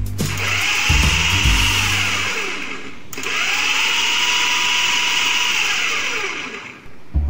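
Electric food processor (chopper) grinding frozen ice-cream mixture in two runs of about three seconds each, with a brief stop between. In each run the whine rises as the motor spins up and falls as it winds down.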